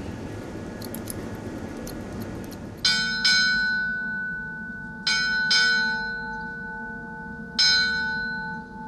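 Brass ship's bell of the royal yacht Dannebrog struck five times in two pairs and a single, each stroke ringing on and fading. This is the ship's bell striking five bells to mark the time of the watch. Before it come a few light snips of hair scissors.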